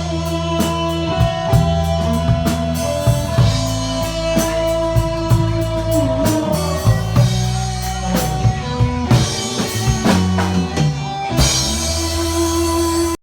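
Instrumental ending of a band-backed pop ballad: drum kit, bass and guitar, with a held lead note that bends down about halfway through, the music cutting off abruptly at the end.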